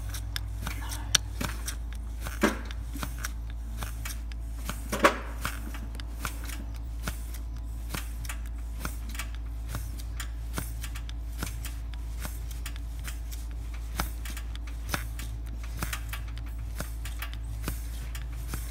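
Hand primer plunger on a Chevy Duramax fuel filter head being pushed down stroke after stroke, a steady run of clicks, priming the fuel system and bleeding air out through the open bleed screw after a filter change. A steady low hum runs underneath.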